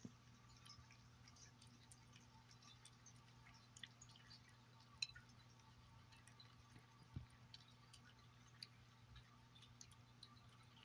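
Cat eating wet tuna food from a glass plate: faint, scattered wet smacks and ticks of chewing and licking, with one sharper click about five seconds in.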